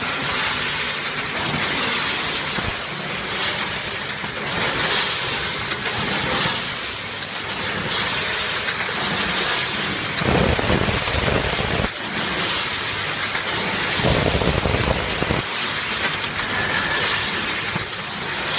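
Machinery of a plastic strapping band production line running: a steady hiss, with two louder stretches that add a low rumble, about ten seconds in and again about fourteen seconds in.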